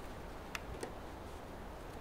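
Faint footsteps on forest ground: two light clicks or crunches a little apart, over a quiet outdoor background.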